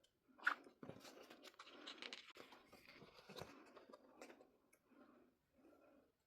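Faint handling of a glossy album photo book: pages rustling and being turned, with small taps of paper and card, the sharpest tap about half a second in.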